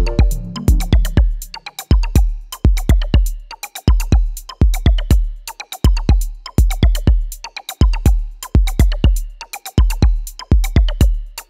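Background electronic music: a beat of sharp, repeating drum hits with deep kicks, the pattern starting afresh about every two seconds.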